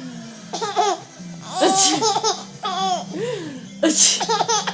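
Baby laughing in repeated high-pitched peals, each bunch rising and falling in pitch, with breathy bursts about two seconds in and again near the end.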